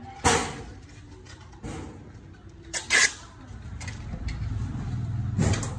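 Two sharp knocks about two and a half seconds apart, then a low rumble that builds toward the end.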